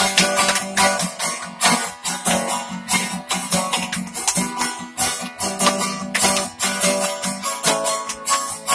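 Acoustic guitar strummed in a steady rhythm of chords, with the strings ringing between strokes.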